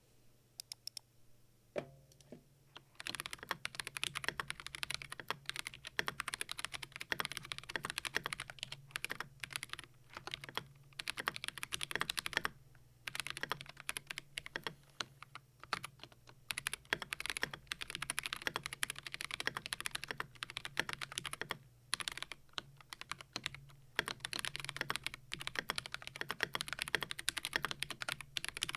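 Keydous NJ68 Max mechanical keyboard, in stock form with unlubed Akko CS Ocean Blue tactile switches and XDA-profile keycaps, being typed on in fast runs of key clacks, with brief pauses about 13 and 22 seconds in. The unlubed switches make it sound scratchy, and the stock spacebar ticks.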